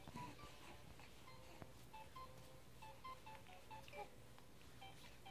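Faint electronic tune of short beeping notes from a baby activity gym's light-up musical toy, the notes stepping up and down in pitch several times a second.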